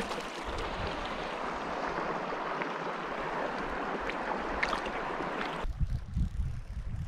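Steady rush of shallow creek water close to the microphone, as a trout is held in the current for release. About five and a half seconds in it cuts off suddenly, and gusty wind rumbles on the microphone.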